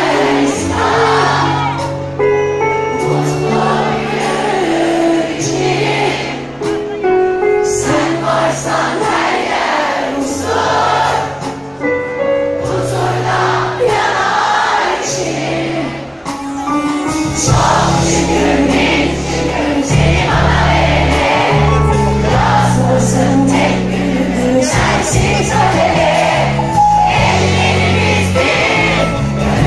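Live pop performance through a concert PA: a woman sings the melody over a band with keyboards and bass. About halfway through, the band fills out with a heavier, denser bass and drums.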